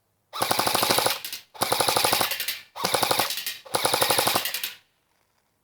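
CYMA AK-47 airsoft electric rifle, fitted with a D-Boys motor and gearbox, firing on full auto: four bursts of about a second each, a rapid rattle of the gearbox cycling and firing BBs.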